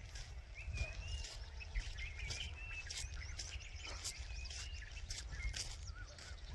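Small birds chirping in quick, short high calls, one after another, over a steady low rumble.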